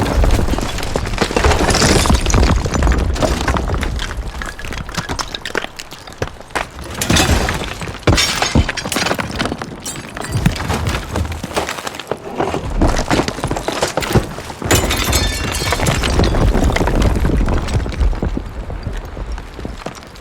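Building collapse sound effects: crashing and crumbling debris, concrete and brick breaking and falling over a deep rumble. The crashes come in several successive waves, and the last one fades away at the end.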